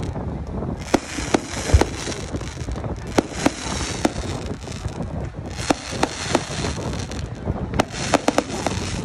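Aerial fireworks display: shells bursting in irregular sharp bangs, a dozen or more, with a few stretches of hiss between them.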